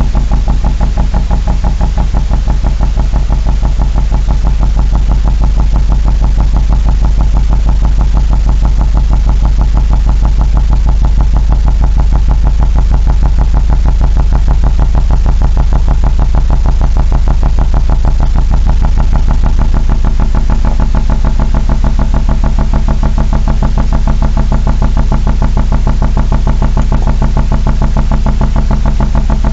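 An engine or machine running steadily, with a low hum and a rapid, even pulsing. The uploader claims it is machinery working in an underground tunnel.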